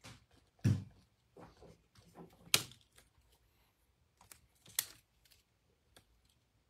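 Irregular typing and clicking on a computer keyboard, with a louder dull knock about a second in and two sharp clicks later on.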